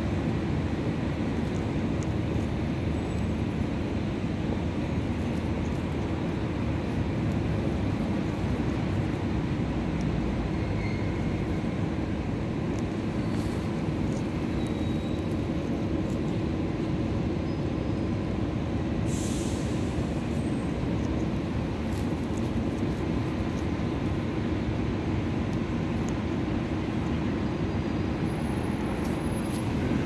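Steady low rumble of outdoor background noise, unchanging throughout, with a brief high hiss about two-thirds of the way through.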